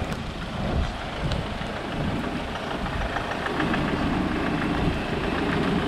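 Land Rover Defender 90 engine running as the vehicle pulls up close and idles. The engine note comes through clearly and steadily from about halfway in, with wind rumbling on the microphone.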